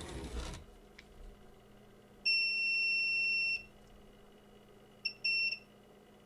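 Digital multimeter in diode-test mode beeping as its probes are put across the ECU's protection diodes: one long, steady, high beep, then a short blip and a second brief beep. A short handling rustle and a click come at the start.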